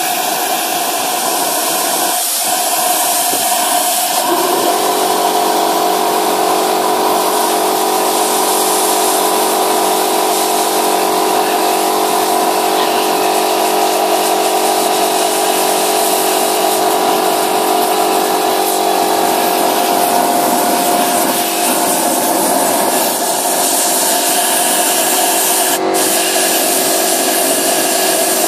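Carbon build-up burning off inside an Audi A3 8L intake manifold under a hand-held gas torch: a loud, steady rush of flame jetting from the manifold. A steady hum of several tones joins about four seconds in, and there is one short click near the end.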